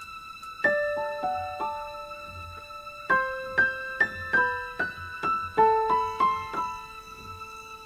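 Background music: a slow piano melody, single notes struck and left to ring.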